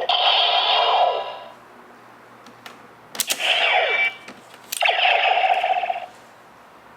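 The Bandai DX Neo Decade Driver toy belt plays electronic sound effects through its small, tinny speaker in three bursts with falling sweeps. Between the first and second bursts come a few sharp plastic clicks of the belt being worked with a card.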